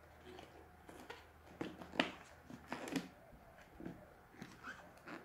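Rubber balloon being stretched by hand over the open bottom of a bottle: scattered soft rubs and light clicks, the sharpest about two seconds in.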